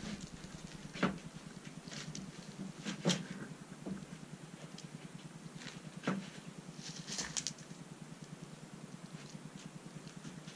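Four sharp taps and clicks about two seconds apart while a cordless drill is held against a wooden board, over a faint steady hum.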